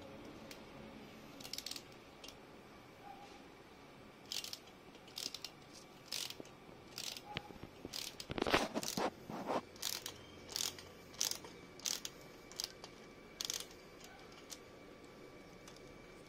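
Screwdriver tightening a worm-drive hose clamp on a motorcycle exhaust pipe: a run of short clicks, about one every two-thirds of a second, loudest in a cluster about halfway through.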